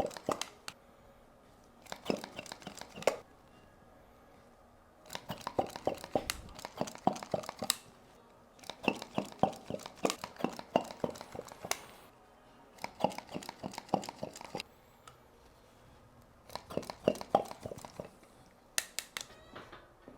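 Crinkling and rustling in about seven bursts of one to three seconds each, with short pauses between, from movement against the treatment table and its cover during a chiropractic back massage.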